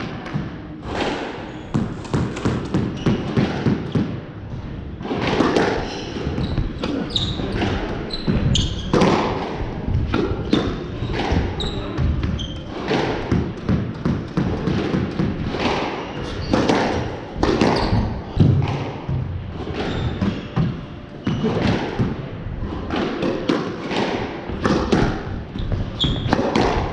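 A squash rally: the ball cracking off racquet strings and off the front and side walls in an irregular string of sharp hits, with court shoes squeaking and pattering on the wooden floor between shots.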